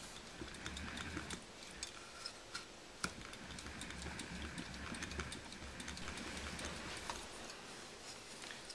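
Light, irregular clicking and knocking over a faint low pulsing hum, from a converted ceiling fan motor being cranked by hand as a generator.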